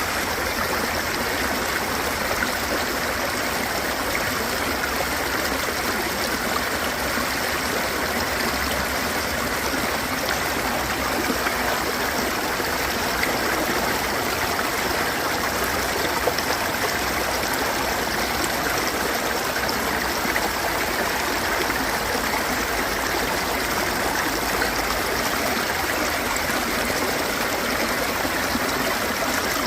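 Water flowing in a stream, a steady, unbroken sound with no change in level.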